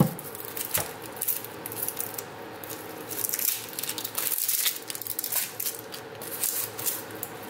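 Knife and hands working half an onion on a plastic cutting board: a sharp click at the start, then scattered small clicks and crackles of the papery skin being trimmed and peeled off.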